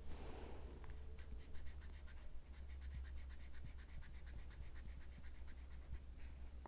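Copic alcohol marker rubbed quickly back and forth on paper, a faint, even scratching of many short strokes, as the colour is layered and blended.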